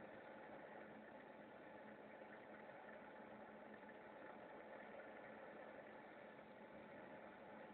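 TIG welding on pipe: a faint, steady hiss with a low hum, unbroken throughout.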